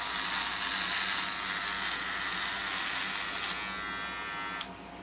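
Electric razor buzzing while pressed into a full beard to shave it off, its steady hum turning rough and hissy as it cuts through the hair. It runs free for about a second, then is switched off with a click near the end.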